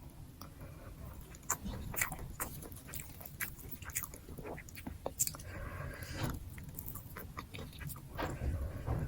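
A person chewing and biting mouthfuls of nasi gila, Indonesian fried rice with mixed toppings, with many short scattered mouth clicks.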